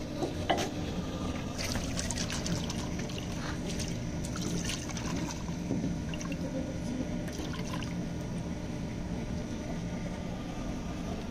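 Water splashed and rubbed by hand around the inside of a painted clay bowl, a light continuous wet swishing with small clicks. Two sharp knocks come about half a second in.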